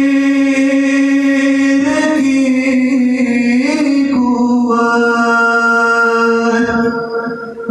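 A young man singing an Urdu Muharram lament solo and unaccompanied, holding long notes with small turns in pitch. His voice trails off shortly before the end.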